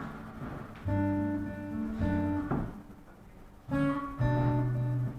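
Acoustic guitar strumming chords and letting them ring. The chords pause briefly about three seconds in, then come back in and are held.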